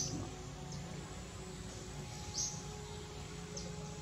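Outdoor ambience: a steady low hum with a few short, high chirps scattered through it.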